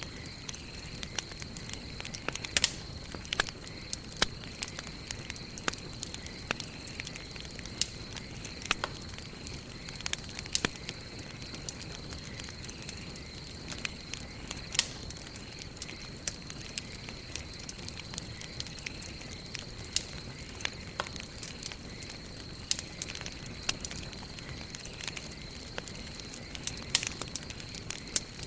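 Wood campfire burning: irregular sharp crackles and pops, several a second, over a steady low hiss of the flames. A faint steady high tone runs underneath.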